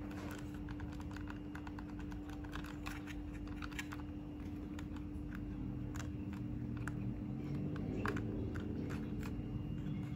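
Small, irregular plastic clicks and fumbling of fingers working a four-wire stepper motor plug off and back onto a CNC shield's driver board, with a steady low hum underneath.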